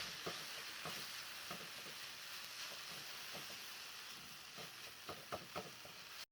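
Potato omelette frying in a pan: a steady sizzle with scattered small crackles and pops, a few sharper ones near the end.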